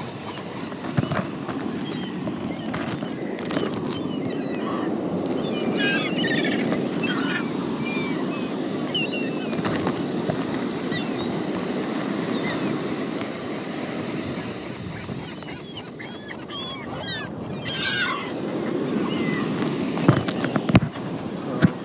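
Gulls calling around the feeder in many short, quick-gliding cries, thickest about six seconds in and again near eighteen seconds, over a steady rushing background noise with a few sharp knocks.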